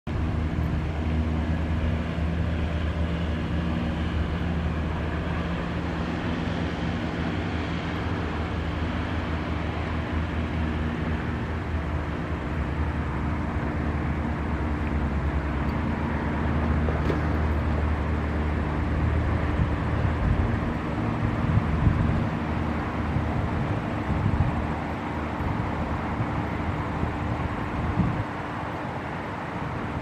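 Road traffic with a steady low engine hum; after about twenty seconds the hum gives way to an uneven low rumble.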